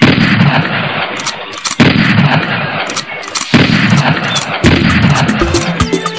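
Gunfire: three heavy shots about two seconds apart, each trailing off in a long rumble, with lighter cracks in between. Music comes in near the end.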